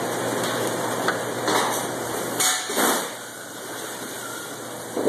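Knocks and slaps of a striped bass and a knife being handled on a plastic cutting board during filleting, over a steady background rush that drops off about three seconds in.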